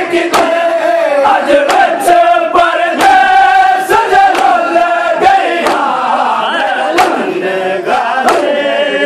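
Men chanting a Shia mourning lament (nauha) together while beating their chests (matam). The hand slaps on their chests fall in a steady rhythm of about two a second.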